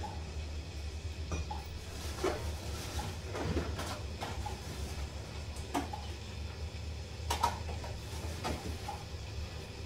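Single-door refrigerator being opened and rummaged through: scattered light clicks and knocks of the door and the things inside being moved, the sharpest about seven seconds in, over a steady low hum.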